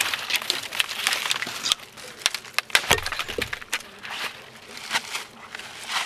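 Dry sticks cracking and snapping in a quick series of sharp crackles, with the crunch of dry leaves and twigs underfoot.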